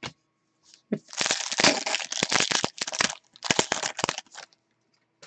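Shiny foil wrapper of a hockey card pack being torn open and crumpled by hand, crinkling and crackling in a long stretch of about two seconds and then a shorter one of about a second.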